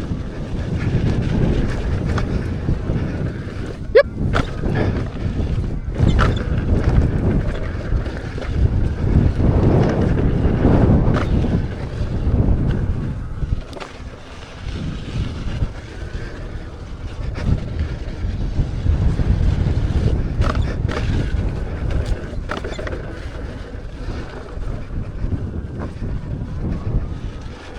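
Wind buffeting the microphone of a rider moving along a dirt trail on an electric unicycle, a rough low rumble that surges and eases. A few sharp clicks or knocks come through, the loudest about four seconds in.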